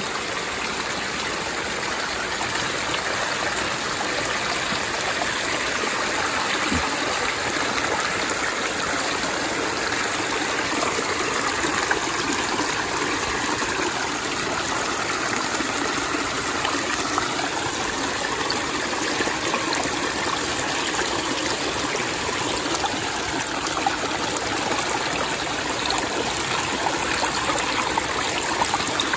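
Mountain-fed stream running steadily, an even rush of flowing water.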